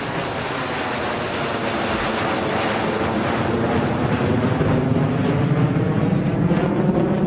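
F-16 fighter jet on full afterburner pulling into a near-vertical climb: a loud, continuous jet noise that grows slowly louder.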